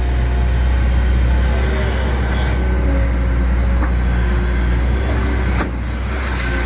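Excavator's diesel engine running steadily with a constant low hum, with one sharp knock about five and a half seconds in.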